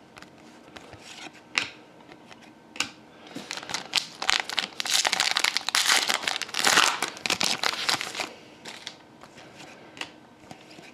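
Hockey card pack wrapper crinkling as it is handled and torn open, densest and loudest for several seconds in the middle, with light clicks and taps of handled cards before and after.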